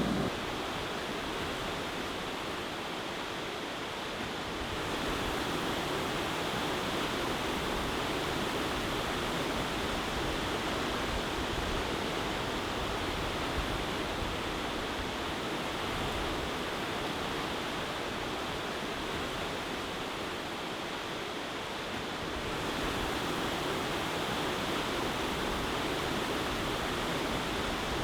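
River water rushing over rapids, a steady noise with no breaks, which gets a little louder about five seconds in and again near the end.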